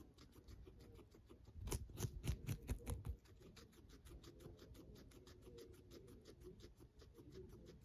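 Guinea pig chewing a celery stalk: quick crunching at about five chews a second, louder for a second or so about two seconds in.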